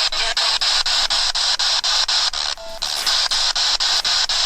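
Spirit box sweeping through radio stations: static hiss chopped about four times a second, with a brief snatch of a radio tone a little past halfway.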